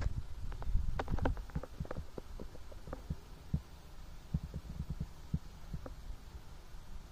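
Irrigation water flowing through a field furrow, trickling and gurgling in irregular small plops and clicks over a steady low rumble, likely wind on the microphone. The plops come thickest in the first couple of seconds.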